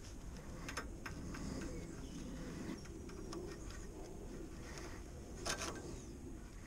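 Light metallic clicks and rattles of a chain-type oil filter wrench being fitted and handled around the oil filter, with a louder clatter about five and a half seconds in, over a steady faint background hum.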